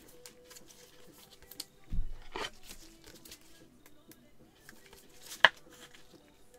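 Gloved hands handling trading cards and a plastic card sleeve: soft crinkling and rustling, with a dull thump about two seconds in and a sharp click about five seconds in.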